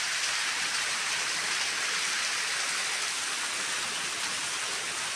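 Small waterfall running low, thin streams splashing down rocks into a pool: a steady rushing hiss.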